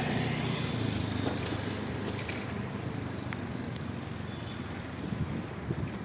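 Road vehicle engine rumbling steadily with tyre and wind noise, easing off slightly in loudness.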